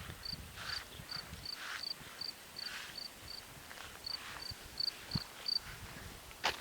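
A cricket chirping, short high chirps at an even pitch about three times a second, pausing briefly midway and stopping near the end, with the soft swish of footsteps through grass.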